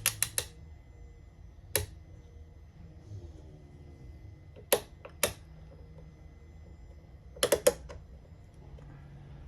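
Bar clamp being tightened with its trigger, sharp clicks coming in a quick run of about five near the start, a few single clicks in the middle, and another quick run of about four near the end.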